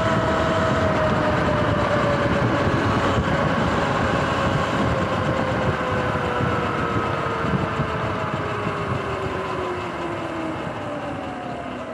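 Sur-Ron X electric dirt bike on pavement: a whine from the electric motor and chain drive that falls slowly in pitch as the bike slows, over wind and tyre noise that fade toward the end.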